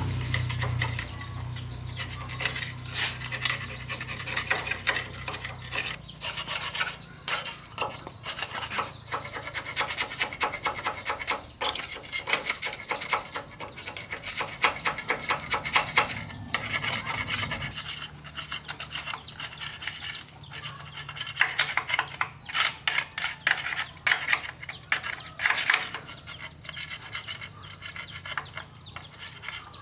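Rapid, irregular rasping strokes of hand abrasive work, rubbing an abrasive against a part. A low hum underneath stops abruptly about two-thirds of the way through.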